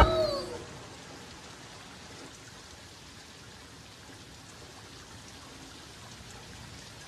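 Steady rain falling on a wet street, after a few falling musical tones die away in the first second.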